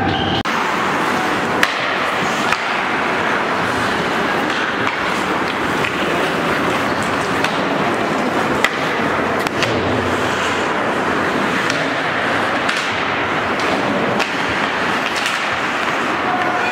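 Ice hockey skates scraping and hissing steadily across the ice, with a few sharp clacks of sticks and puck now and then.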